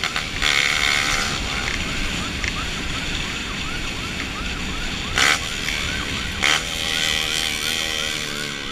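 Police siren wailing in a fast, even rising-and-falling yelp, about three cycles a second, over a steady low rumble of road noise. Two short louder noises come partway through.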